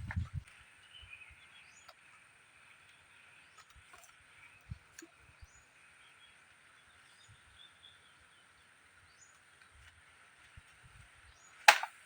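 Quiet outdoor ambience: a steady high hiss with occasional short faint chirps, and a single sharp loud crack near the end.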